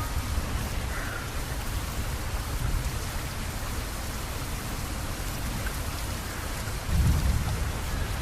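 Steady rain falling, with a low rumble of thunder about seven seconds in.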